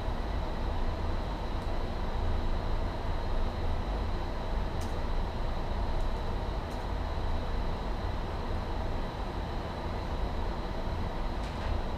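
Steady low rumble and hiss of office air conditioning, with a few faint, scattered clicks from a keyboard and mouse.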